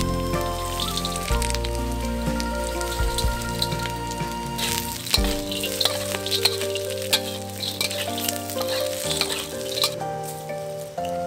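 Curry leaves, dried chillies, fried peanuts and anchovies sizzling in oil in a hot wok as they are stir-fried, with many small clicks and scrapes of the spatula against the wok. Soft background music with held notes plays underneath.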